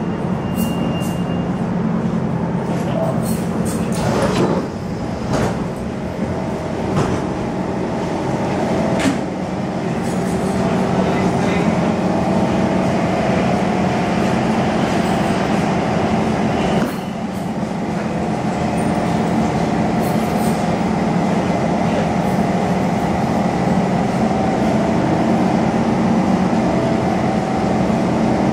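SMRT C151 metro train standing at an underground platform, with a steady hum from its running equipment. A few knocks and thuds come in the first ten seconds as the train doors and platform screen doors slide open.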